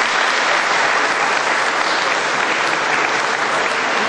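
A large seated audience applauding: dense, steady clapping.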